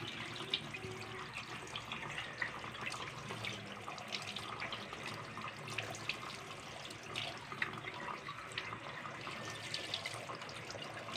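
Kitchen tap running into a stainless steel sink while whole tilapia are rinsed by hand under the stream, with small splashes and drips as the water runs over the fish.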